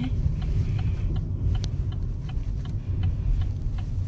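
Low rumble inside a Chevrolet Cruze's cabin as it creeps along at low speed, with a faint regular ticking about three times a second.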